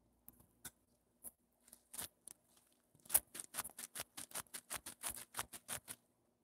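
Light, sharp clicks or taps, a few scattered at first, then from about halfway a quick run of about five a second that stops shortly before the end.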